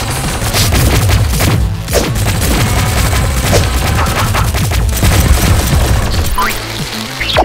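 Action music with a heavy bass under rapid volleys of Nerf blaster fire. The bass thins out about six seconds in, and a rising swoosh follows near the end.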